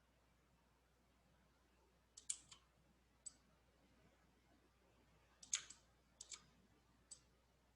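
Computer mouse clicking in small groups of quick clicks, with near silence between them.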